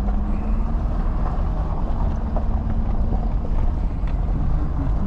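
Truck driving: a steady engine hum over a loud, low rumble of road and wind noise.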